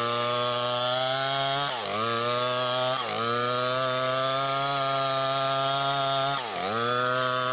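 Chainsaw engine running at high revs, its pitch briefly dropping and recovering about three times.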